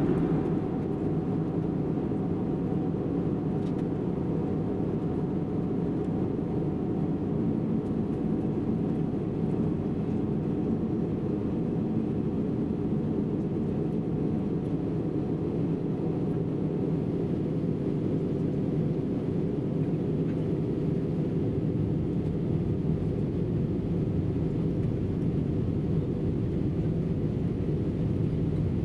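Airbus A319 passenger cabin in flight on its descent: the steady low drone of engine and airflow noise heard from inside the cabin.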